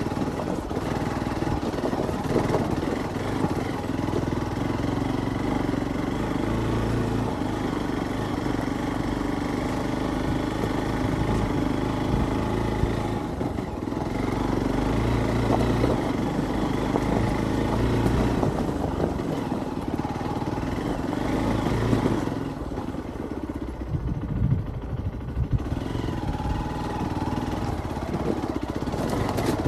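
Hero Xpulse 200 dual-sport motorcycle's single-cylinder engine running steadily while riding over rough rocky off-road ground. The engine eases off for a few seconds about three-quarters of the way through, then picks up again.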